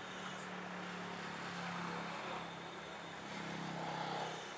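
A digger's diesel engine running steadily with a low, even hum.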